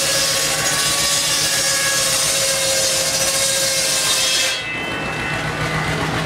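Shingle mill's circular saw cutting through a wooden block: a loud hiss of the cut with a steady whine over it. About four and a half seconds in, the cut ends suddenly and the saw runs on more quietly over a low hum.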